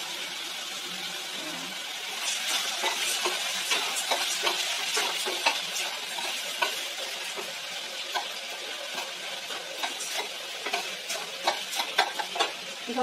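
A metal ladle stirring raw mung beans through sautéed onion and tomato in a stainless steel pot, with irregular clinks and scrapes against the pot from about two seconds in, over a steady sizzle from the hot pan.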